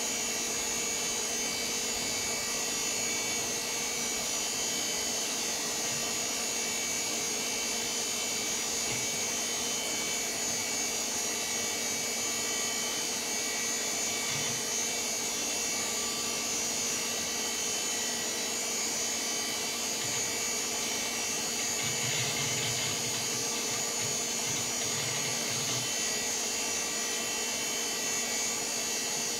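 VAX 4000-100A minicomputer running, its cooling fans giving a steady whir with several steady whining tones. A short stretch of low rumbling comes about three-quarters of the way in.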